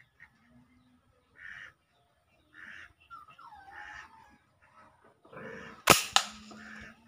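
Ball bearing toy gun firing one sharp shot about six seconds in, followed a moment later by a second, softer crack. Before the shot, birds call in the background.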